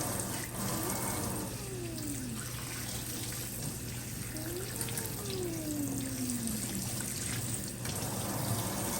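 Shower water running steadily during a puppy's bath, with two long, falling whine-like tones over it, about a second in and again near the middle.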